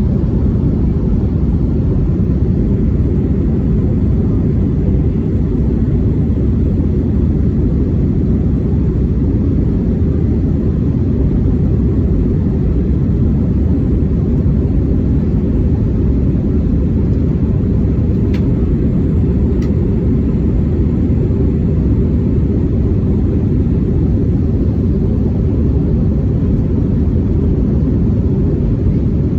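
Spirit Airlines Airbus A320's engines and airflow giving a steady low rumble inside the cabin during the climb after takeoff.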